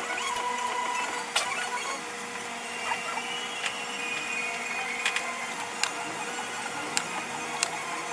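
Everyday work sounds played at five times speed: a busy chatter of short, high chirping tones and several sharp clicks over a steady hum.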